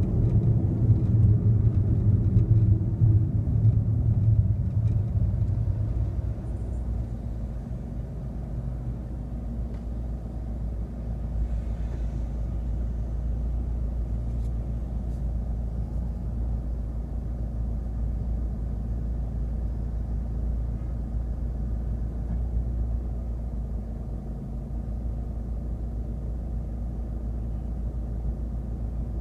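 A car's low road and engine rumble, louder for the first six seconds while it is moving, then settling to a steadier, quieter rumble as it idles in stopped traffic.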